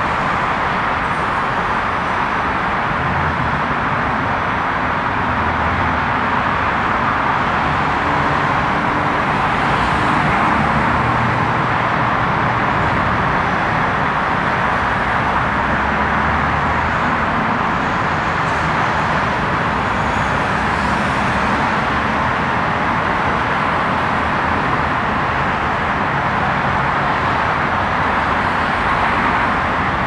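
Steady road traffic noise: a constant wash of passing cars, with lower engine rumble coming and going.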